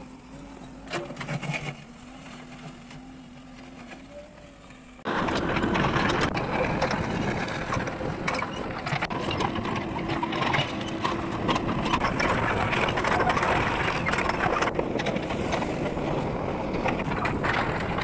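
JCB backhoe loader at work, its diesel engine running as the bucket digs rocky soil. A fairly quiet steady hum for about five seconds, then an abrupt jump to much louder, dense machine noise.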